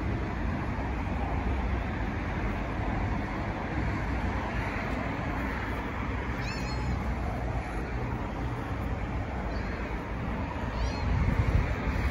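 A hungry tabby cat gives two short, high meows while begging for food, one about six seconds in and one near the end. A steady background rumble runs underneath.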